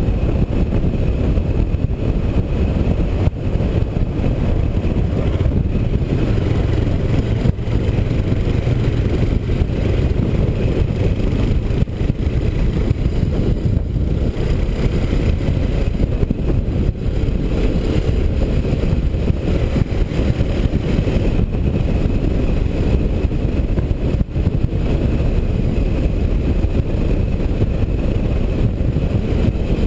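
Honda CBX 250 Twister motorcycle riding along a street, its single-cylinder engine running steadily under heavy wind noise on a helmet-mounted microphone.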